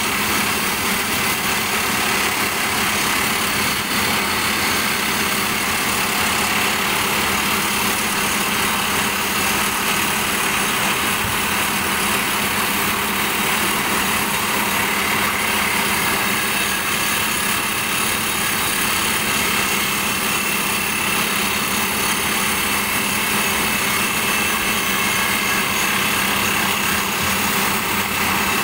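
Furukawa FRD HCR910 hydraulic crawler drill's rock drill hammering steadily as it bores into rock, over the rig's engine running.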